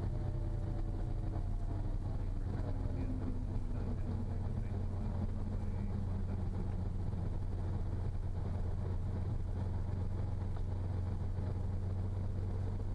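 Cirrus SR22's 310 hp engine and propeller running at low power after touchdown, heard inside the cabin as a steady low drone. A higher tone in the sound falls in pitch over the first several seconds as the aircraft slows on the rollout.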